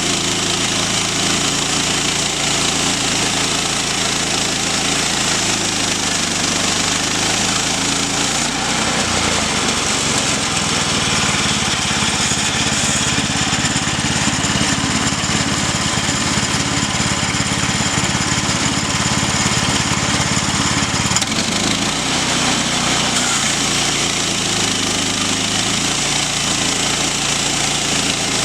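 Small gasoline engine running steadily, powering the saw used to mill planks. Its note changes for about twelve seconds in the middle, then returns to the earlier steady drone.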